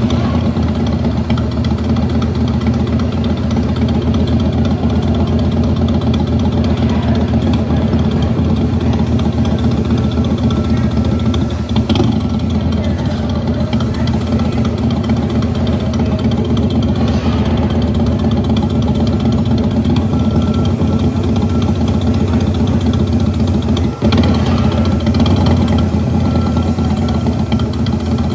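A themed ride bike's onboard speakers play a steady idling motorcycle-engine rumble. There is a short knock about halfway through and another near the end.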